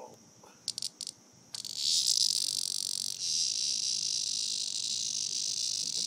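Cicada buzzing in distress while caught by a puppy: a few short high rasps, then from about one and a half seconds in a loud, continuous high buzz.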